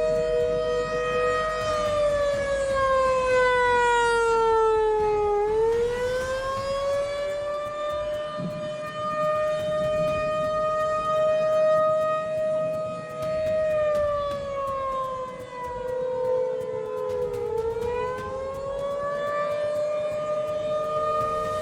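Warning siren sounding two tones at once: it holds its pitch, slides down over about four seconds, then rises back up. This happens twice.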